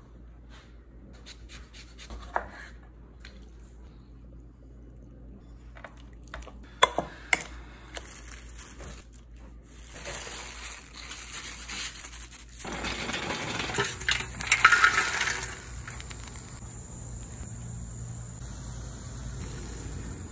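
A metal spoon clinking against a ceramic bowl a few times, then plastic wrap crinkling, loudest a few seconds past the middle. In the last few seconds a steady high insect drone comes in.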